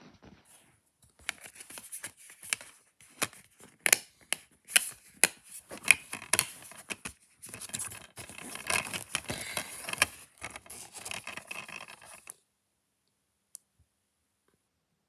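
Clear plastic DVD case handled in the hands: a run of sharp plastic clicks and scrapes, which stop about twelve seconds in, followed by one last click.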